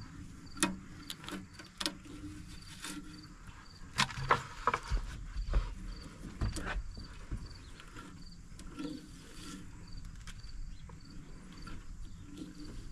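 Rustling, scraping and crackling of dry mouse-nest debris being pulled by a gloved hand out of a tractor's rusty steel battery tray, with scattered sharp clicks, loudest about four seconds in. A faint high chirp repeats about three times a second throughout.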